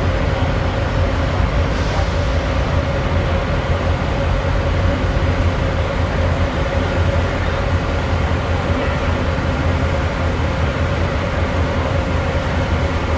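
Diesel locomotive engine of a MARC MP36PH-3C running steadily as it moves slowly away. It is a deep, even hum with a steady higher whine over it.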